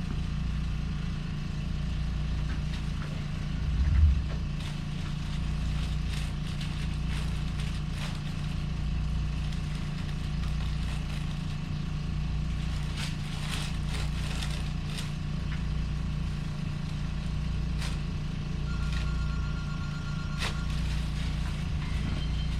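A steady low mechanical hum that swells and fades about every two seconds, with one thump about four seconds in and a few faint clicks.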